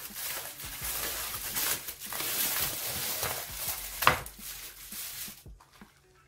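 Aluminium foil crinkling and rustling as it is pulled off the base of an upturned metal cake ring, with one sharp knock about four seconds in, then fading out.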